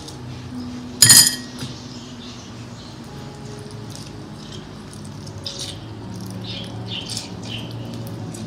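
A sharp clink about a second in, then faint wet squelching and ticking as a lemon is squeezed by hand over a bowl.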